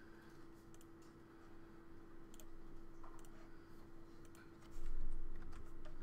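Scattered computer mouse and keyboard clicks over a steady hum, with a brief louder low rumble about five seconds in.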